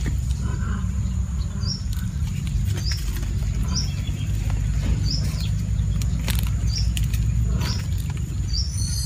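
Hands breaking and sorting freshly harvested ginger rhizomes, with scattered soft clicks and rustles, over a steady low rumble. A small bird chirps repeatedly, a short high note every second or so.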